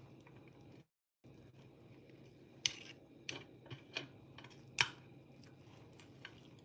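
A few short, sharp clicks and clinks of kitchen utensils and dishes being handled, over a low steady room hum, with a brief cut to silence about a second in.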